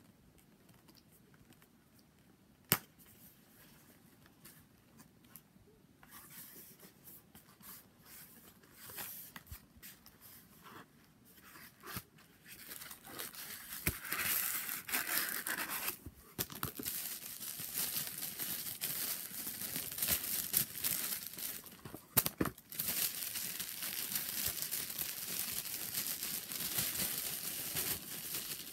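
A cardboard wand box being opened, with one sharp click about three seconds in, then paper wrapping rustling as it is handled and unfolded from around a wand, becoming louder and nearly continuous from about twelve seconds on.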